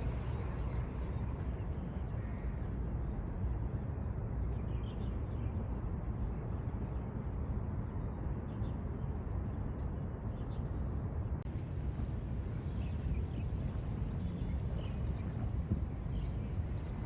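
Steady low outdoor rumble with a few faint, short high chirps through it.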